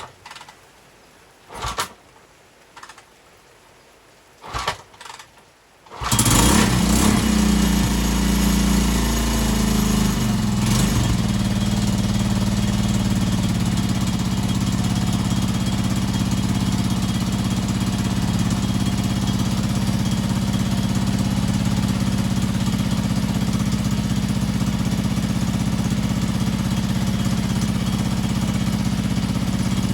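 Honda TLR200 four-stroke single-cylinder engine started after a few short knocks: it catches about six seconds in and runs unevenly for a few seconds before settling into a steady run. It is running on a newly fitted aftermarket CDI ignition unit.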